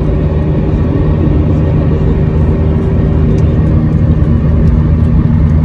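Steady rumble of a car driving at highway speed, heard from inside the cabin: engine hum and road noise.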